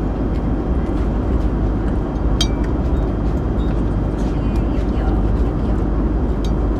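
Steady low rumble of an airliner cabin in flight, the constant engine and airflow noise. A single light clink of metal cutlery on a plate sounds about two and a half seconds in.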